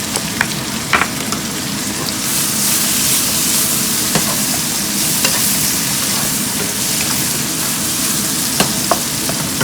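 Eggplant and sliced pork belly sizzling as they are stir-fried in a wok, the sizzle growing louder about two seconds in. A spatula clicks against the pan a few times.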